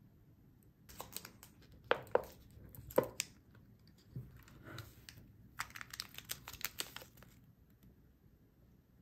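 Thin clear plastic dome lid prised off a plastic drink cup, crackling with a few sharp snaps. Then, a little past halfway, a quick run of crinkling as the foil sachets under it are handled.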